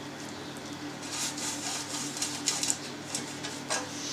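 Pastry brush swished over the inside of non-stick metal loaf pans, oiling them: a run of soft, irregular brushing strokes.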